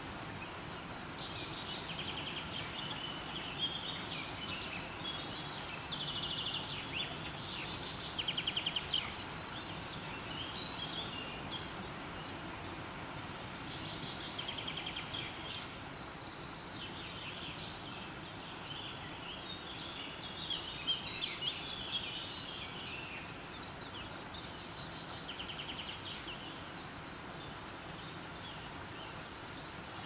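Shallow river flowing over stones with a steady rush, while birds call over it in repeated bursts of quick trills and chirps.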